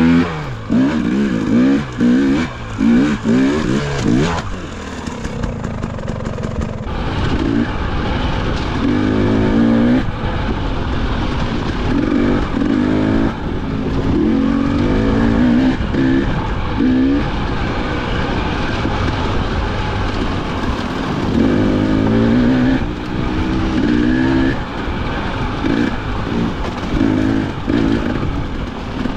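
Two-stroke dirt bike engine being ridden, its revs climbing and dropping over and over as the throttle is worked, every second or so. There is a steadier, lower-revving stretch about five seconds in.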